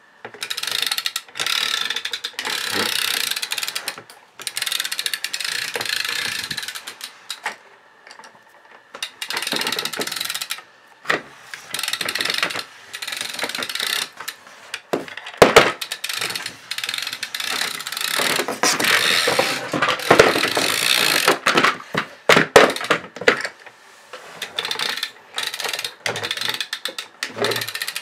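A 1980 Fisher-Price plastic airplane pull toy being rolled back and forth, its wheels and spinning propeller making a rapid mechanical clatter. The clatter comes in runs of one to four seconds with short pauses between, and there are a couple of sharper knocks around the middle.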